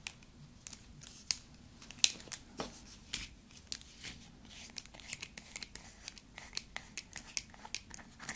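Long hard fingernails clicking and scraping on a small plastic slime tub as it is handled and twisted open: a string of irregular sharp clicks and scratches, the loudest about two seconds in.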